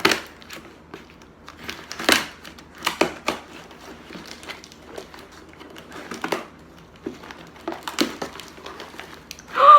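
Parcel packaging being unwrapped by hand: wrapping crinkling and rustling in irregular bursts, loudest at the start, about two seconds in, and about eight seconds in.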